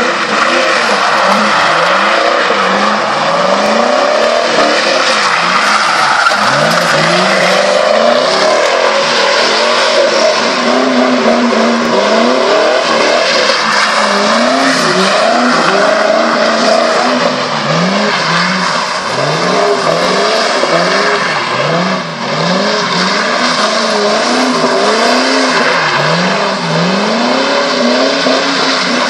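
Two LS1 V8 Camaros doing donuts. The engines rev up and drop back again and again, about once a second, over the continuous squeal of spinning tyres.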